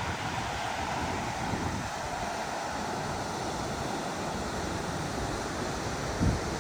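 Steady roar of rushing water from the Toce waterfall, with wind gusting on the microphone and a short thump near the end.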